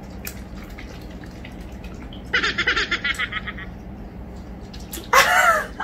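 Faint chewing and mouth clicks from people eating pizza. About two seconds in comes a quick burst of rapid stuttering vocal sound, and near the end a short voiced sound.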